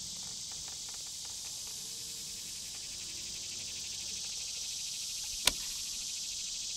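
Steady chirring of insects in a summer field. About five and a half seconds in comes one short, sharp snap from the longbow shot at a hay bale target.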